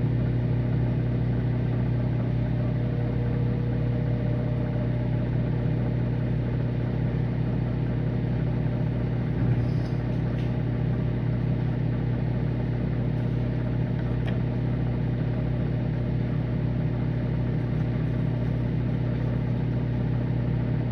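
Microwave oven running with a steady low hum, with a couple of faint ticks about halfway through.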